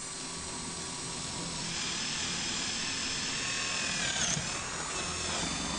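DeWalt 10.8-volt cordless drill driver running steadily with a motor whine. Its pitch dips briefly about four seconds in.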